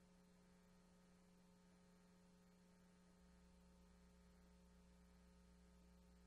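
Near silence: only a faint, steady electrical hum, its low end growing slightly stronger about three seconds in.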